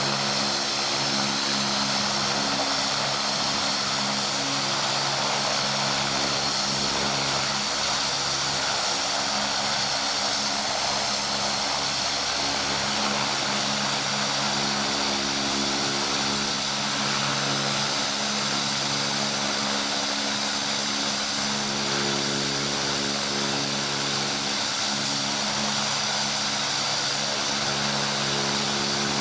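Air Tractor AT-602 agricultural plane's PT6A turboprop engine running steadily on the ground with the propeller turning: a high, even turbine whine over a low propeller hum, unchanging throughout.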